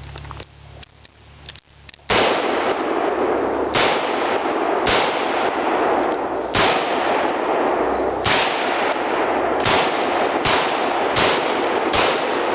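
Del-Ton AR-15 rifle in .223/5.56 firing nine single shots at an uneven, unhurried pace, starting about two seconds in. A few small clicks come before the first shot, and a loud steady hiss fills the gaps between the shots.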